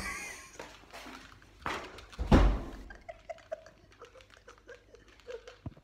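Muffled, stifled laughter behind a hand, with two sharp knocks from the phone being handled in the first half.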